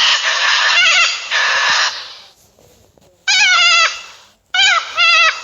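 Cockatoo screeching: a long, harsh screech for about two seconds, then after a pause a string of shorter wavering calls.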